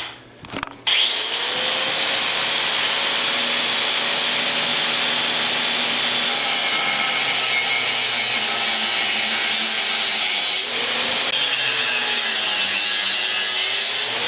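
A power cutting tool running steadily as it cuts through a steel exhaust mid-pipe. Its motor tone sags and recovers twice near the end, as it loads up in the cut.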